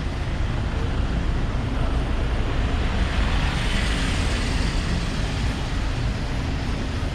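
City street traffic noise: a steady low rumble of vehicles, with one passing closer and louder about halfway through.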